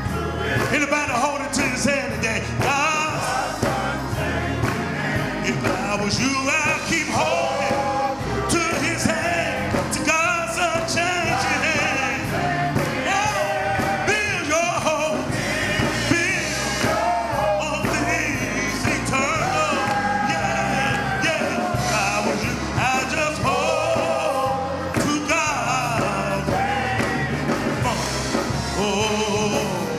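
Gospel music: singing over a full instrumental accompaniment with a steady bass line.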